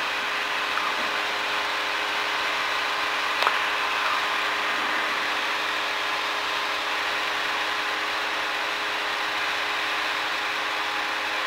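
Cabin drone of a Cirrus single-engine piston airplane's engine and propeller, running steadily on final approach with flaps out. A brief click comes about three and a half seconds in.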